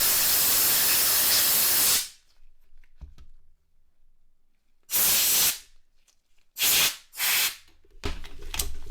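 Compressed air blown in hissing bursts: one long blast of about two seconds, then three short blasts from about five seconds in.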